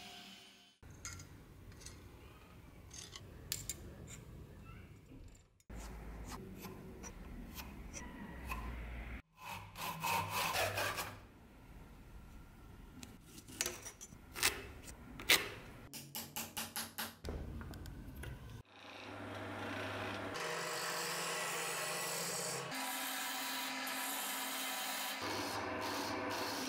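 Woodworking sounds on a beech handle blank: a tool rubbing and cutting wood, a quick run of sharp ticks, then a wood lathe running steadily as a turning tool cuts the spinning blank, over the last several seconds.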